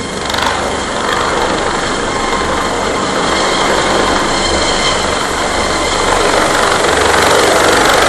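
Helicopter carrying an underslung load on a long cable, flying close overhead: steady rotor and turbine noise with a pulsing low beat from the blades, growing louder as it comes nearer.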